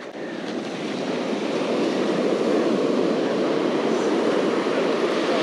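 Steady rush of ocean surf breaking on the beach, swelling over the first couple of seconds and then holding level.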